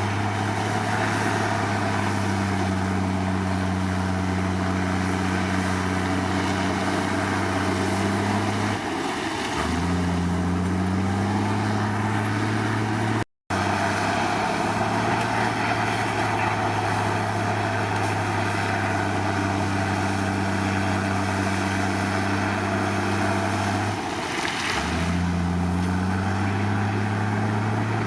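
Komatsu D53 bulldozer's diesel engine running with a steady low drone. Twice, about nine seconds in and again near the end, the engine note sags briefly and then climbs back.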